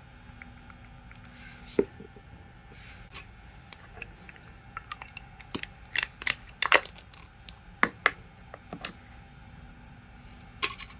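Irregular light clicks and clinks of small parts and tools being handled, most of them bunched from about four to nine seconds in, over a low steady hum.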